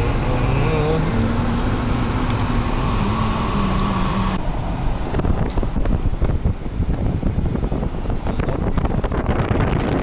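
Car engine and road noise heard inside the cabin, the engine hum shifting pitch in steps. About four seconds in it gives way abruptly to gusty wind buffeting the microphone.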